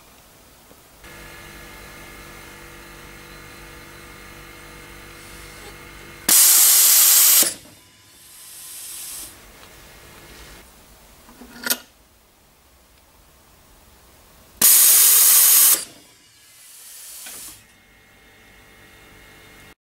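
Pneumatic valve actuator venting compressed air during a partial stroke test: two loud hisses of about a second each, several seconds apart, each followed by a softer hiss that swells and then stops. A sharp click comes between them, and a steady hum runs for the first few seconds until the first hiss.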